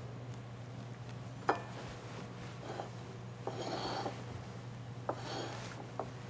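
Cloth kitchen towel rubbing against the rim of a ceramic plate as it is wiped clean, in two short scratchy passes, after a single sharp click about a second and a half in.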